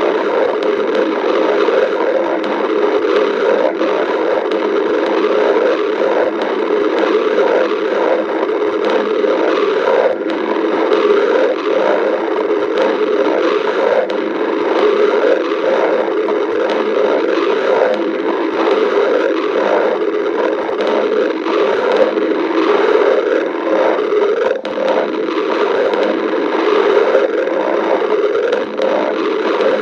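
Hungry stomach growling: a continuous, dense gurgling and rumbling with many small bubbling pops, without a pause.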